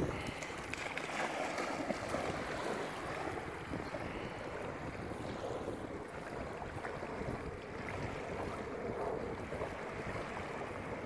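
Small river waves lapping and washing onto the shore, with water splashing as a husky puppy swims and bounds through the shallows. Wind buffets the microphone underneath.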